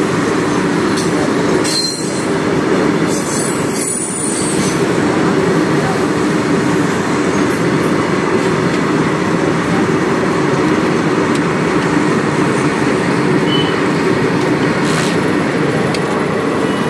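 Indian Railways freight train of open-top steel wagons passing close by at a level crossing, its wheels on the rails making a steady, loud rumble.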